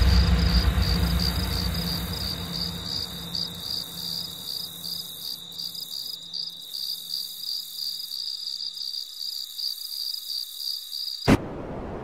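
Cricket chirping, a steady pulsing trill, over the fading tail of a deep low boom that dies away over the first few seconds. The crickets cut off abruptly near the end.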